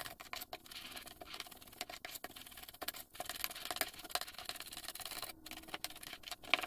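A metal spoon scraping and clicking against a glass bowl in quick, irregular strokes as softened butter is rubbed together with sugar.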